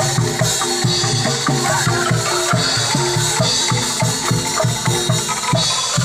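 Music with a steady drum beat and a repeating bass line.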